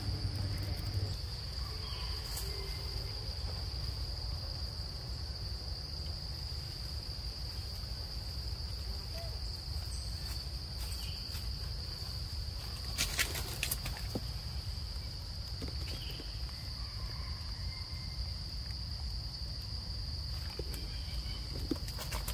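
Insects droning steadily in the forest, one unbroken high-pitched tone over a low rumble, with a short burst of crackling about 13 seconds in.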